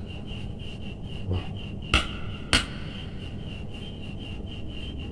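Two sharp clicks about half a second apart, with a softer tap just before them, over a faint steady background hiss with a thin high tone.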